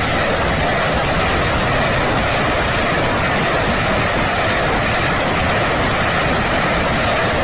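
BM-21 Grad truck-mounted multiple rocket launchers ripple-firing a salvo: a loud, unbroken roar of rocket motors, the launches blending into one another with no single one standing out.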